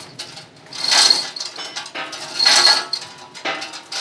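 Two-ton manual chain block being hauled hand over hand to raise a steel WF beam: its metal chain links clink in bursts about every second and a half, one with each pull.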